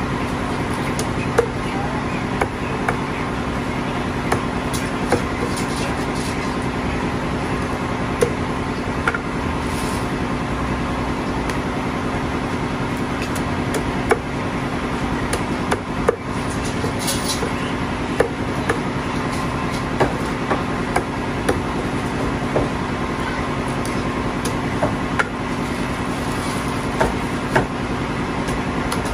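Meat cleaver chopping whole plucked chickens into quarters on a thick wooden block: sharp irregular chops, about one every second or two, over a steady background hum.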